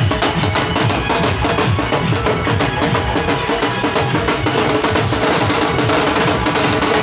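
Loud, fast dhol drumming with band music playing along, in the dance rhythm of a wedding procession.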